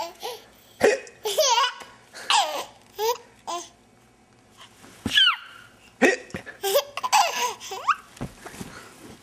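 A young child's hiccups and laughter: short high-pitched giggles and vocal bursts broken by sudden hiccup catches, with a quiet stretch about four seconds in.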